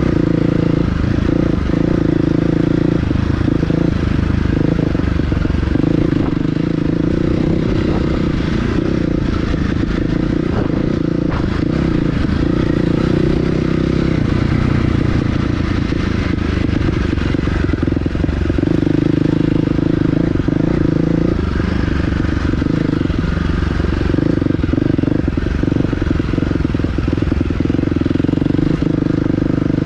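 Dirt bike engine running while being ridden off-road, its note swelling and easing every few seconds as the throttle is worked, with scattered knocks from the bike over rough ground.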